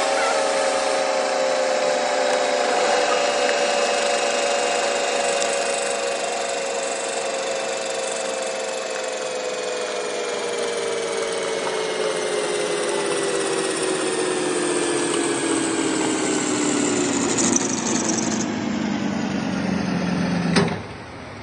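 Metal being machined: a steady whine from the cutting machine, over a rough cutting noise, slowly falling in pitch for about twenty seconds. It stops abruptly with a sharp click near the end.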